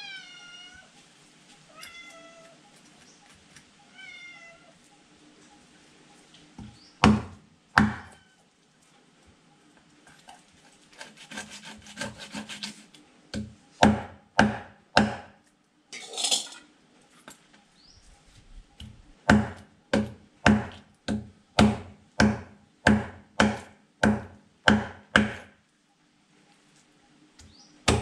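A cat meows three times, short calls that fall in pitch, about two seconds apart. Then a large, heavy knife scrapes and chops a tilapia on a thick wooden block: single hard chops, a stretch of scraping, and near the end a run of about a dozen evenly spaced chops, roughly one and a half a second.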